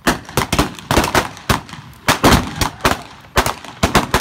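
A gunfight staged with blank-firing revolvers and a long gun: rapid, irregular shots from several guns, about four or five a second, some overlapping in a ragged volley.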